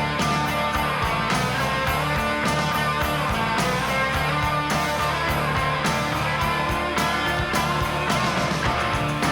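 Instrumental passage of a 1980s alternative rock song. Electric guitars strum over bass and a steady drum beat, with no singing.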